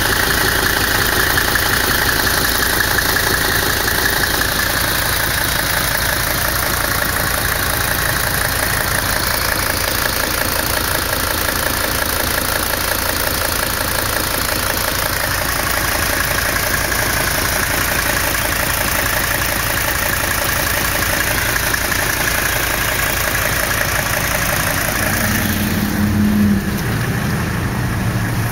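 1982 Mercedes 300SD's turbocharged five-cylinder diesel engine running steadily with diesel knock, fed on purge cleaner from a bottle during a fuel-system purge.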